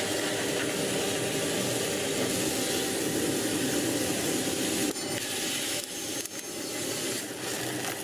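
Small drum coffee roaster running, with roasted coffee beans rattling and hissing as the stirring arm turns them in the cooling tray. About five seconds in the sound drops and gives way to uneven clinking and rustling.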